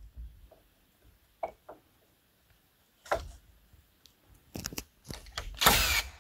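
Cordless drill driving screws to fasten wooden roof battens: a short burst of the motor about three seconds in, a few brief bursts around the fifth second, and a longer, louder run near the end. A couple of light wooden knocks come a second or two in.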